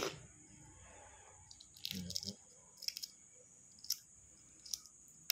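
Balut duck eggshell being cracked and peeled off by hand: short sharp crackling clicks about once a second. There is a bout of chewing about two seconds in.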